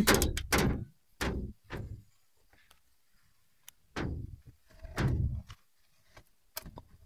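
A run of short knocks and bumps against wooden boards, several close together in the first two seconds and two more a few seconds later.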